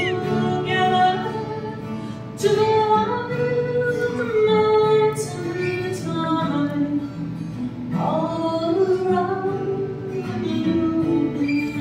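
A woman singing a folk song, accompanying herself on acoustic guitar with strummed and picked chords under the melody.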